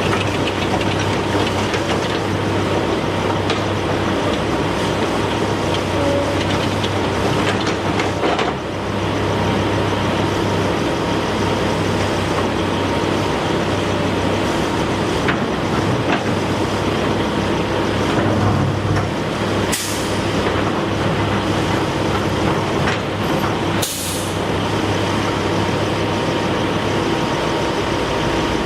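Heavy diesel machinery running steadily with a constant low hum, with two short hisses of air in the latter half.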